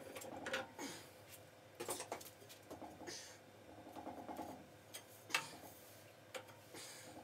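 Faint metallic clicks, taps and scraping as a copper drain extension pipe is twisted loose from a boiler pressure relief valve held with a pipe wrench, with one sharper click a little after five seconds in.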